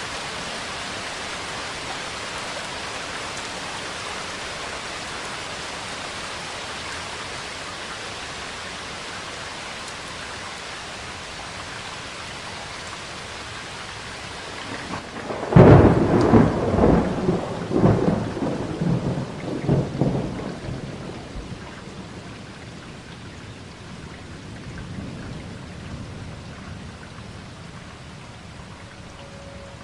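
Thunderstorm: steady rain hiss, then about halfway through a sudden loud thunderclap that rolls on in several rumbling peals for about five seconds. The rain goes on softer afterwards, with a fainter rumble of thunder a few seconds later.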